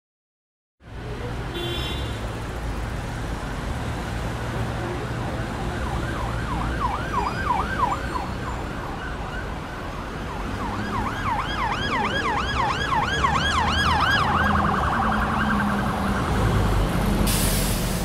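An electronic siren sweeping rapidly up and down in a yelp pattern, over a low rumble of road traffic. The siren starts about six seconds in, drops out briefly, comes back, switches to a faster warble, then stops about fifteen seconds in.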